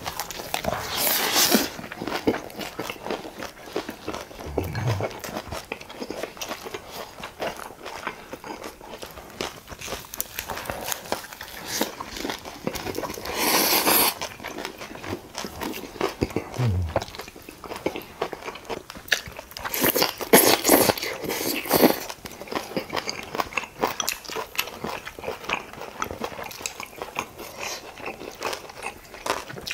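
Close-miked eating: steady wet chewing of pork bulgogi wrapped in lettuce leaves with kimchi. Louder crunchy bites come about a second in, near the middle, and about two-thirds of the way through.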